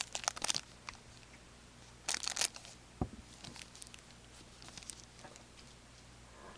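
A foil trading card pack being torn open: two short tearing rips about two seconds apart, a single knock about a second later, then faint ticks and rustles of the cards being handled.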